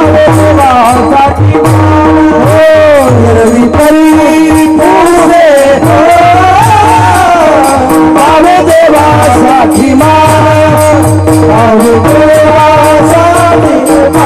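Kirtan bhajan: men singing a devotional chant with small brass hand cymbals (taal) struck in a steady rhythm, over a drum beat and a held drone.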